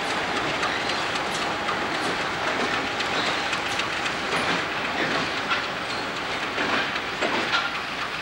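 A set of diesel locomotives running light through a rail yard, rolling past and away with their wheels clicking over rail joints and switches amid a steady running noise.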